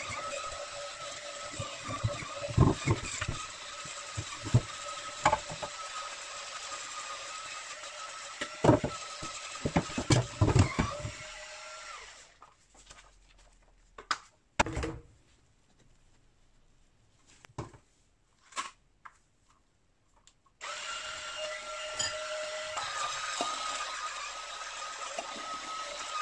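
Cordless electric kitchen cleaning brush (EUL-SS001) running with a steady motor whine, its spinning head knocking and clattering against a pan in a steel sink. It stops about twelve seconds in, leaving a few knocks, and starts up again some eight seconds later.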